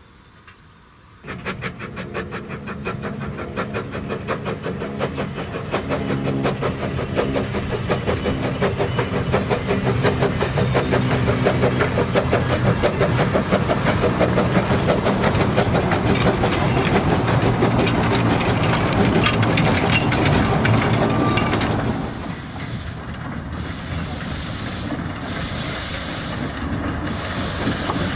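Narrow-gauge steam locomotive working a train. It starts suddenly about a second in with hissing steam and a fast, even beat of exhaust chuffs and wheel clatter. Near the end a slower beat of loud chuffs comes, about one every second and a half, as a Hunslet saddle tank works hard with its train.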